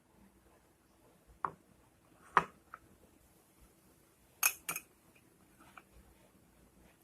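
Five or so short, sharp clicks and knocks at uneven intervals, with a quick pair about two-thirds of the way through, like small hard objects being set down or handled.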